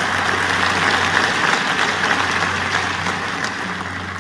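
Large audience applauding in a hall, the clapping thinning out and fading over the last second or so.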